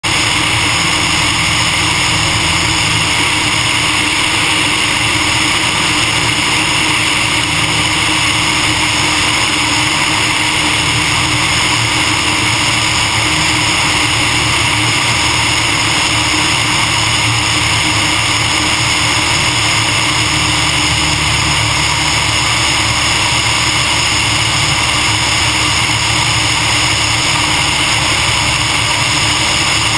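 Steady drone of a Cessna 150M's four-cylinder Continental O-200 engine and propeller in flight, heard under a heavy, even wind rush from the camera sitting outside the aircraft in the airflow.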